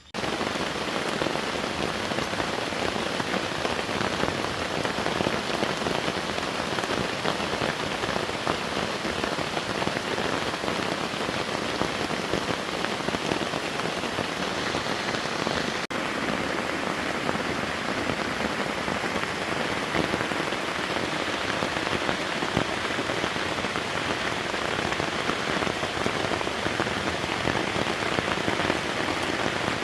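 Heavy rain of a forest rainstorm pouring steadily, cutting in abruptly at the start.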